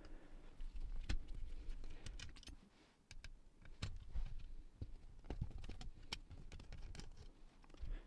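Screwdriver taking out the screws of a cassette deck mechanism's metal motor keeper plate, then the plate being handled: scattered light clicks and taps of metal on metal.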